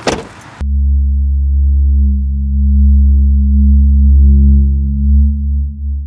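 A loud, steady low electronic drone from a film score: a deep hum with a few held tones stacked above it, coming in abruptly just under a second in. It is preceded by a brief sharp knock at the very start.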